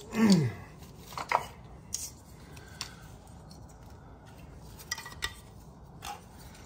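Hard plastic pieces of 1980s G.I. Joe playsets clicking and clattering as they are picked up and handled, a handful of separate sharp clicks spread over several seconds.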